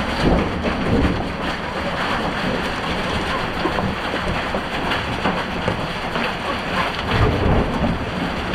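Heavy hail falling hard, a dense patter of many hailstones striking, with low rumbles swelling near the start and again near the end.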